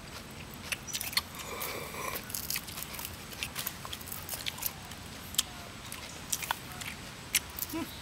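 Close-up eating sounds: scattered small clicks and crunches as cooked snail shells are handled and the meat is picked out with a stick, along with chewing.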